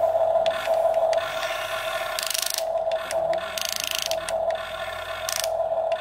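Remote-control toy excavator's small electric motors and plastic gears whining in short spurts as the arm and bucket move.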